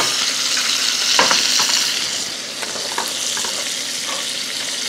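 Sea scallops sizzling steadily as they sear in hot olive oil in a nonstick pan. Over it, a wooden spoon stirs thick risotto in a stainless steel pot, giving a few soft knocks and scrapes.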